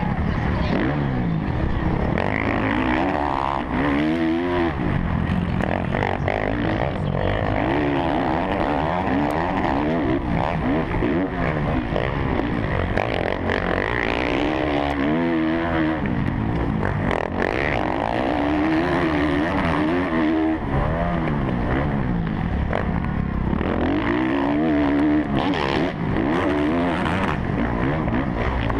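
Kawasaki KX450F single-cylinder four-stroke motocross engine racing around the track, revving up and dropping off again every few seconds as it accelerates, shifts and brakes for corners.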